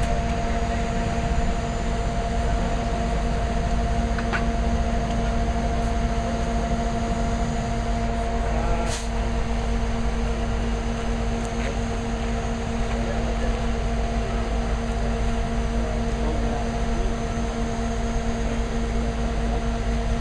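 A large engine runs steadily at constant speed, a continuous even drone with a deep rumble. It is typical of the launch crane's diesel engine. A few faint clicks come through, one about nine seconds in.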